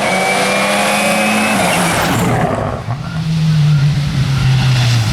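Seat Córdoba WRC rally car's turbocharged four-cylinder engine running hard at speed. Its pitch holds, then drops about a second and a half in. It dips briefly around three seconds in, then pulls again and slides lower near the end.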